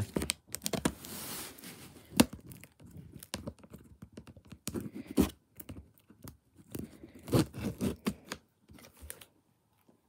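Cardboard shipping box being torn and pulled open by hand: irregular ripping, scraping and knocking of cardboard, with a longer rip about a second in and a sharp knock about two seconds in.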